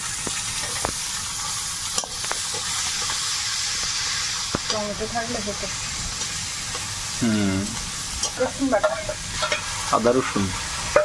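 Whole spices (dried red chillies, bay leaves and panch phoron) sizzling in hot oil in a metal kadai while being stirred with a metal spatula, with a steady hiss and several sharp clicks of the spatula against the pan.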